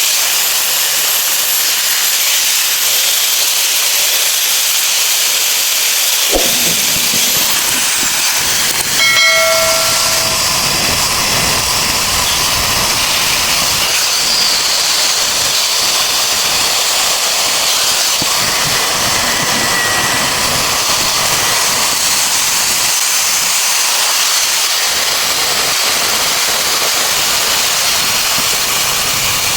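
Steady loud hissing noise, with a brief whistle-like tone about nine seconds in.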